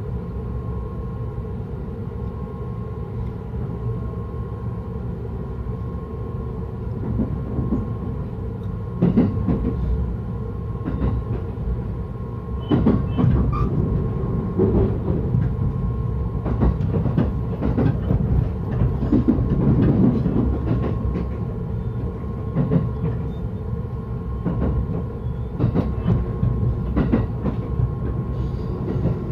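Electric commuter train running on the Yokosuka Line, heard from inside the car: a steady rumble with a faint hum, and rail-joint clicks and knocks that start about a third of the way in and grow louder and more frequent.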